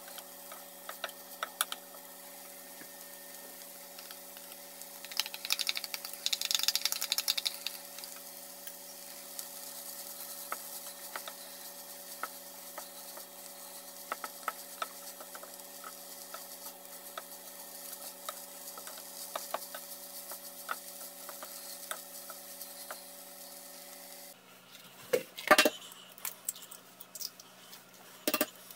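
Wooden spatula stirring and scraping fried rice around a nonstick frying pan, with a light sizzle and many small clicks over a steady hum, louder for a couple of seconds about five seconds in. Near the end come a few sharp knocks as eggs are cracked into a bowl.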